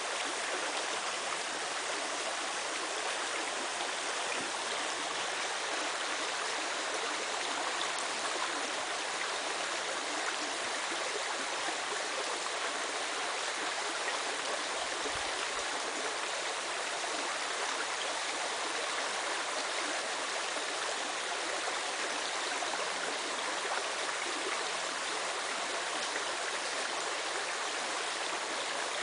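A creek running steadily: a continuous, even rush of flowing water.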